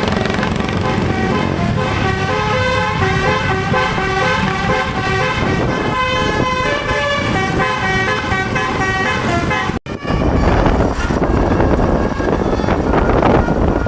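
Bus telolet horn, a multi-tone air horn, playing a quick tune of held notes that step up and down in pitch. Just before ten seconds in it cuts off suddenly and gives way to a loud, even rushing noise.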